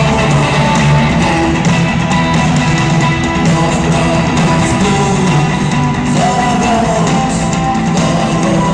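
Rock band playing live: guitar-led rock music with bass and drums, loud and dense throughout.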